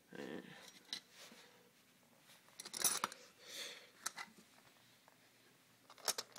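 Faint handling sounds of a Duke No. 1.5 coil-spring foot trap being pressed down underfoot to set it: scattered metal clicks and scrapes, the sharpest about three seconds and six seconds in.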